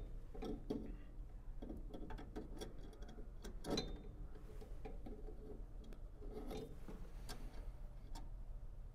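Small scattered clicks and taps of needle-nose pliers gripping and twisting a gas furnace's spark igniter out of its holder on the burner assembly, with one louder click a little under four seconds in, over a low steady hum.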